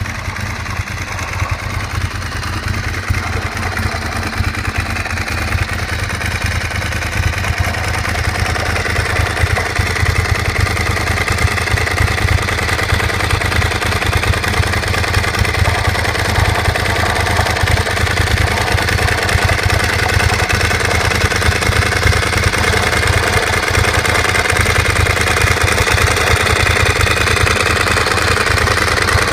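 Ducati 999's L-twin engine running steadily near idle, slowly growing louder over the first ten seconds or so. It carries an odd noise that the owner cannot place.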